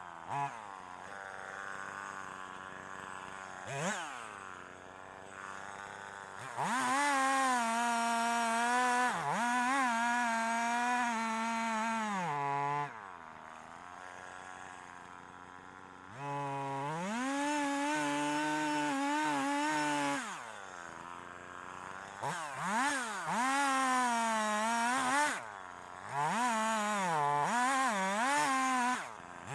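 Husqvarna 340e two-stroke chainsaw cutting chestnut wood: three long stretches at full throttle, about 7, 16 and 22 seconds in, where the engine's pitch wobbles and dips as the chain bites, with the saw dropping back to a quieter, lower running between them.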